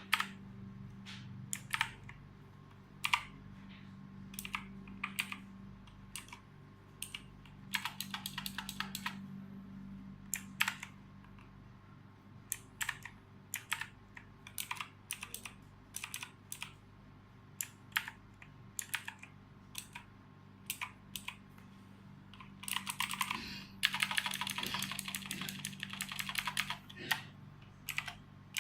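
Imperion Mach 10 mechanical keyboard being typed on: single key presses at irregular intervals, with a short run of rapid typing about eight seconds in and a longer one from about 23 to 27 seconds.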